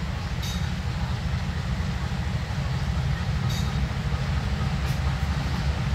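Diesel-electric locomotive's engine running with a heavy, steady low rumble as it pulls a broad-gauge passenger train slowly out of the station, growing slightly louder as it nears. A few faint metallic clicks come from the train.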